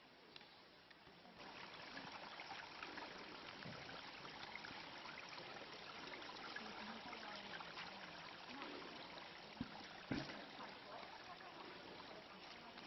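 Mountain stream trickling and splashing over rocks, getting louder about a second and a half in. Two brief knocks come about ten seconds in.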